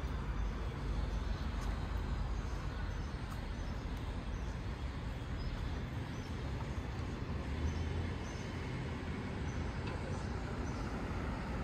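Outdoor city street ambience: a steady low rumble with a few short, faint, high chirps.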